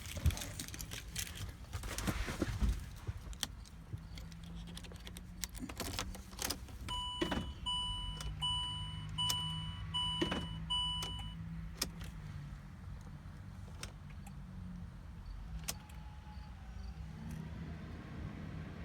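Inside a 2012 Land Rover with a hill descent control fault that won't start: clicks and key rattle, then five short, evenly spaced warning beeps from the car's dashboard chime, over a low steady electrical hum.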